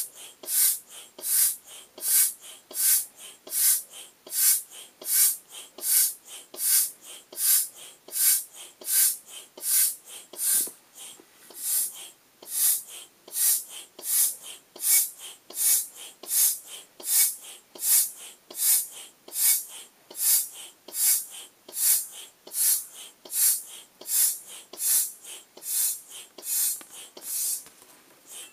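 Foot pump pushing air through its hose into an inflatable vinyl beach ball: a rhythmic hiss of air with each press of the pump, about four strokes every three seconds.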